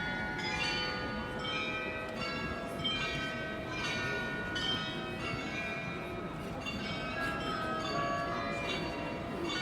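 Munich Rathaus-Glockenspiel carillon bells playing a tune: many tuned bells struck in quick succession, their tones ringing on and overlapping, over a steady low background noise.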